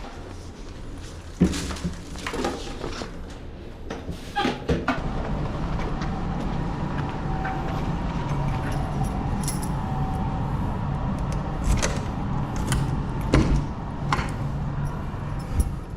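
Knocks and rattles like a door and keys being handled, over a steady hum that grows louder about five seconds in.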